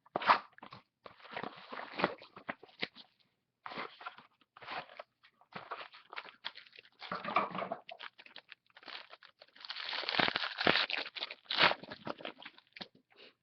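Crinkling and crackling of plastic wrap and cardboard as a sealed football trading-card box is torn open and its contents handled, in irregular rustling bursts with short pauses.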